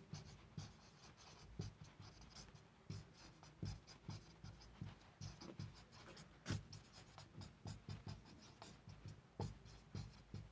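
Felt-tip marker writing on a whiteboard: faint squeaks and scratches of the tip in short, irregular strokes as words are written, with small taps where the pen meets the board. The sharpest tap comes about six and a half seconds in.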